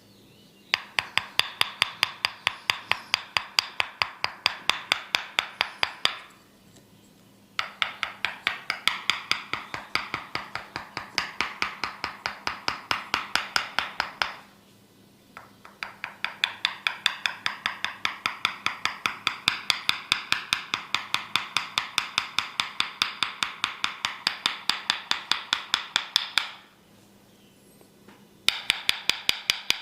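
Tok sen massage: a wooden mallet tapping a wooden wedge held against the head. The taps come in long runs of rapid, even strikes, broken three times by pauses of a second or two.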